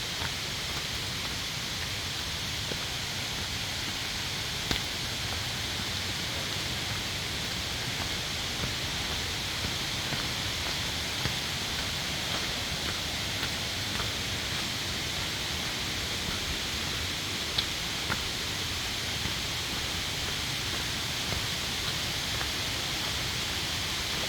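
Steady rushing of a mountain stream in a valley, with occasional light ticks over it.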